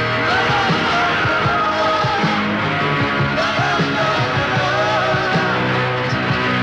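Rock song playing: a singer over a full band.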